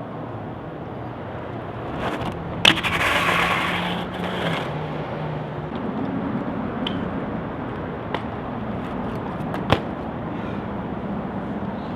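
BMX bike ridden on flat ground: tyres rolling on pavement, with a sharp knock about three seconds in followed by a scraping rush for nearly two seconds, a few light clicks, and another sharp knock near the end.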